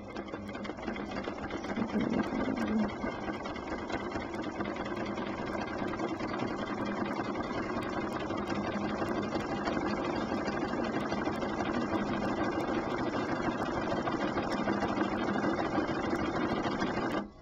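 Domestic sewing machine running steadily while free-motion quilting, the needle stitching rapidly through the quilt, then stopping suddenly near the end.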